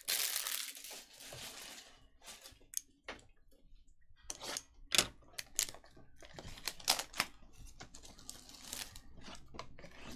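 Trading card packs and cards being handled: a dry tearing rustle for the first couple of seconds, then scattered short clicks and snaps of cards and wrappers.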